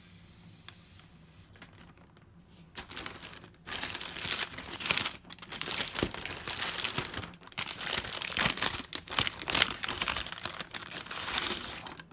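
Thin plastic shopping bag rustling and crinkling as a hand opens it and rummages inside, starting about three seconds in and going on in irregular handfuls.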